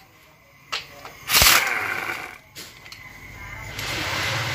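Pneumatic impact wrench run in two short bursts, a loud one about a second and a half in and a steadier one near the end, undoing the 10 mm bolts of an automatic transmission's valve body.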